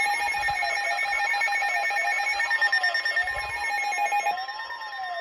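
Electronic alert tones: a tone sweeping up and down about once a second over several steady, higher, beeping tones. The higher tones drop out near the end.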